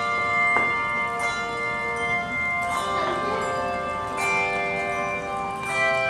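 Handbell choir ringing: brass handbells struck in chords every second or so, each note ringing on and overlapping the next.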